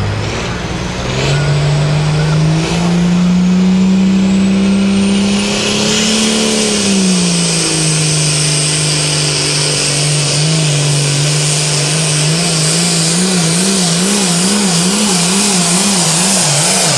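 Turbocharged International Harvester pulling tractor under full load pulling a weight sled, its diesel engine climbing in pitch for the first six seconds, dipping about seven seconds in, then wavering quickly up and down in the last few seconds. A high whine rises into a loud hiss from about five seconds in.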